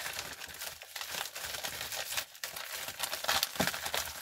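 White paper packaging crinkling and rustling as it is handled and folded, with irregular crackles and small sharp snaps.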